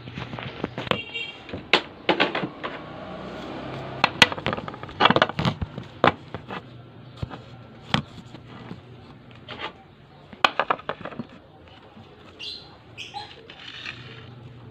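Irregular clinks and knocks of a metal spoon against a ceramic coffee mug as the mug is handled, a few of them ringing briefly, mixed with bumps from the phone being moved.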